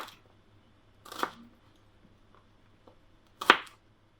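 Kitchen knife cutting vegetables on a chopping board: three separate cuts, the loudest near the end.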